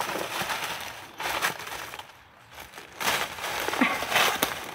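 Dry leaf litter crunching and rustling in several bursts, with a quieter pause near the middle.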